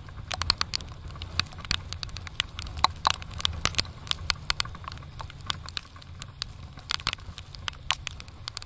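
Raindrops hitting the camera and microphone on a moving motorcycle: irregular sharp ticks, several a second, over the low steady rumble of the motorcycle and the wind.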